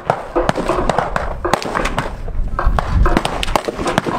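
Gunfire from many shooters at an outdoor range: a rapid, irregular run of sharp shots from several guns, some overlapping, with no steady rhythm.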